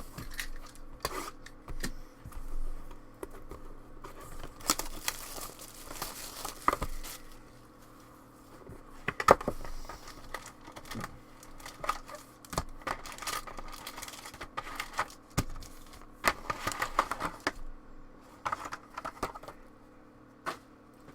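Crinkling and tearing of plastic wrapping and cardboard as sealed trading-card boxes and packs are handled, with scattered clicks and taps. A sharper click comes about nine seconds in.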